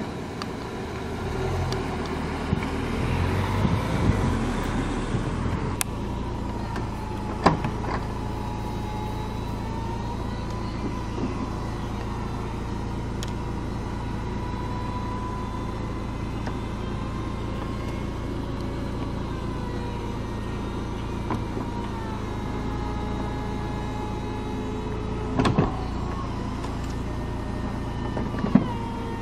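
Volkswagen Eos's electro-hydraulic folding hardtop closing: a steady motor hum with a faint, wavering whine, broken by a few sharp clunks as the roof panels move and latch, two of them near the end.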